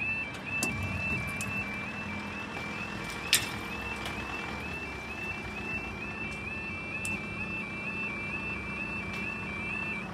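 Level crossing warning alarm sounding a steady two-tone warble, about three tone changes a second, while the barriers are down; it cuts off suddenly near the end. A single sharp click about three seconds in.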